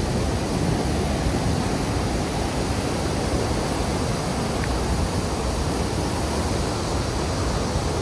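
Large waterfall, the Great Falls of the Passaic River, about 77 feet high, rushing as a steady, even noise.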